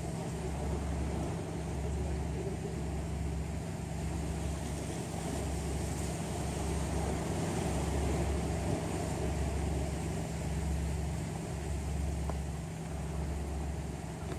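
Steady low mechanical rumble with a slow throb about once a second.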